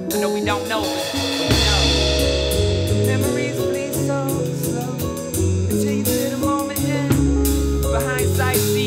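Live band playing an instrumental passage: drum kit with cymbals, hollow-body electric guitar, and deep held bass notes.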